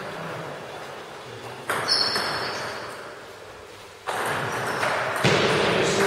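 Table tennis ball being struck by bats and bouncing on the table, echoing in a large hall. There are sharp hits about two seconds in, again around four seconds and once more about five seconds in, as a serve and return start a rally.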